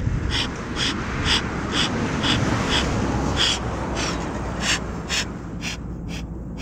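Bee smoker bellows pumped in a steady rhythm, about two puffs a second, each squeeze pushing a short whoosh of air through the burning cedar shavings to keep the fire lit and hot.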